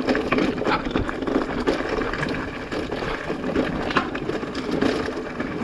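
Mountain bike rolling down a rough, wet single-track: tyres running over stones and roots with a constant rattle of small knocks from the bike, and wind on the microphone.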